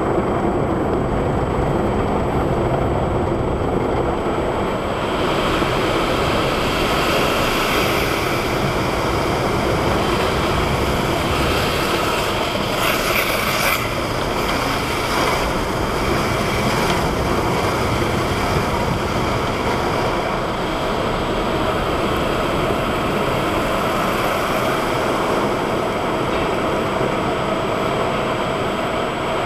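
Automatic car wash heard from inside the car: a steady rumble of wash machinery, with water spray drumming on the windshield and roof. The spray hiss grows fuller about five seconds in and is heaviest around the middle.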